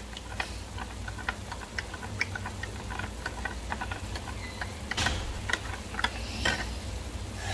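A spoon stirring taco seasoning into water in a small glass, clinking lightly against the glass in quick, irregular ticks, with a couple of louder clinks near the end.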